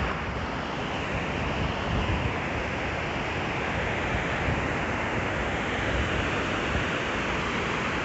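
Steady rush of water pouring over the concrete weir steps of a dam spillway into the pools below, with wind rumbling on the microphone.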